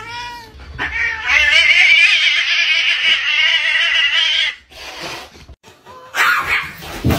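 A cat meows once at the start. Then fighting cats yowl and screech loudly for about three seconds in a high, wavering caterwaul that cuts off abruptly. A short harsh noise follows near the end.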